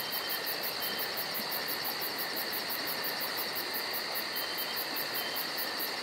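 A chorus of insects such as crickets: a high chirp pulsing about four times a second over a steady, shrill drone.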